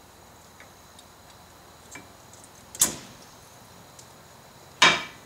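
New brake pads snapping into the spring-loaded clips of a 2001 Ford F350's front caliper bracket: two sharp clicks about two seconds apart, with a few faint light ticks before them.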